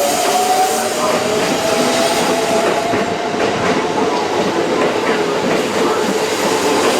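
Keisei electric train running on the tracks, its wheels clattering over the rails under a steady whine that drifts slowly in pitch.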